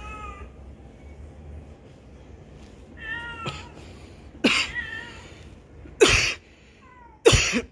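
Cats meowing: a meow at the start and another about three seconds in, then three loud, harsh bursts at about four and a half, six and seven seconds in.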